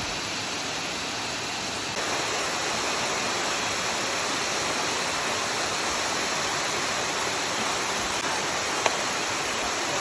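Rushing water of a stream, a steady even rush that grows slightly louder about two seconds in.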